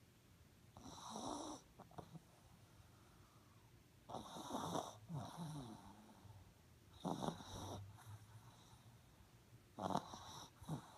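A small black-and-tan dog snoring in its sleep: four snores about three seconds apart.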